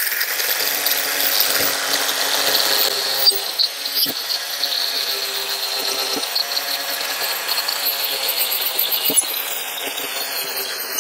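A power tool running steadily, with a few short knocks along the way.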